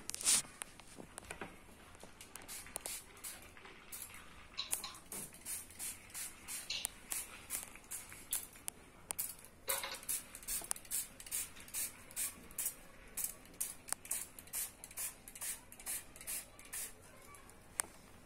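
A hand-held fine-mist spray bottle spritzing water onto wet watercolour paper, in quick short hissing sprays about two a second that start a few seconds in and run on until near the end.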